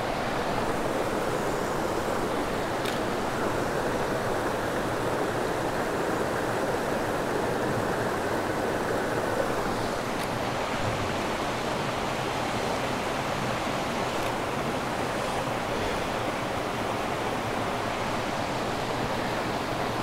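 Small rocky river rushing over low cascades: a steady, even rush of water.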